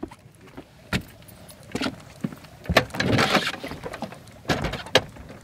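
Knocks, clunks and rattles of gear being handled at the bow of a fishing boat: several separate knocks, with a longer rattle about three seconds in.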